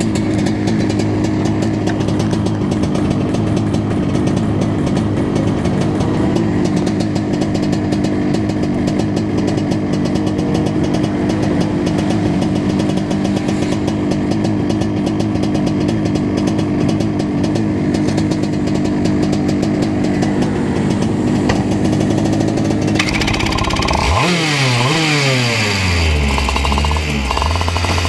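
Two-stroke racing kart engine idling steadily, then in the last few seconds revving up and down in quick rising and falling sweeps as the kart pulls away.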